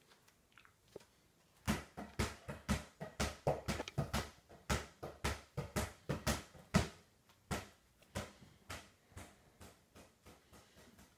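A quick, irregular run of thumps and taps, about three a second, starting about a second and a half in and thinning out and fading near the end.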